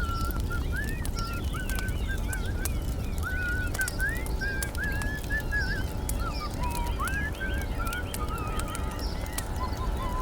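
Wood bonfire burning, with frequent small crackles and pops over a steady low rushing background. A continuous warbling, whistle-like line of song runs over it without pause.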